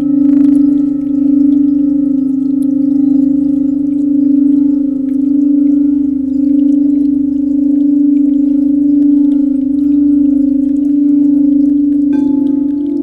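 Singing bowl sounding one long steady tone whose loudness swells and fades in a slow pulse. About a second before the end a second, higher bowl tone comes in over it.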